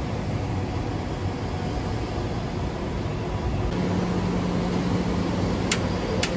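Steady city traffic noise with a constant low rumble; a low steady hum joins about four seconds in, and two short sharp clicks come near the end.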